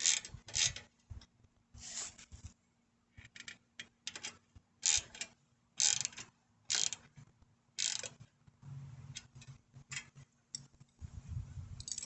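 Ratchet wrench clicking in short strokes, about one a second, as the front caliper brake's mounting nut is tightened down.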